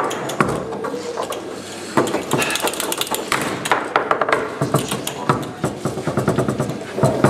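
Foosball play on a Tecball table: the hard ball knocked about by the plastic figures and the rods clacking, a rapid run of sharp clicks and knocks, sparser for about the first two seconds.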